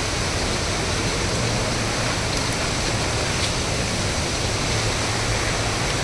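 Steady, even rush of water from Dudhsagar waterfall and the rocky stream below it.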